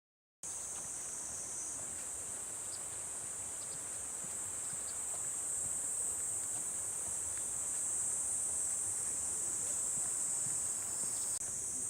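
A steady, high-pitched chorus of summer insects shrilling without a break, over a faint background hiss. It starts abruptly about half a second in and dips briefly near the end.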